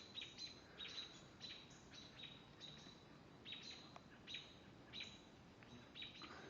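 Faint birdsong: a bird repeating short, high chirps, about two or three a second.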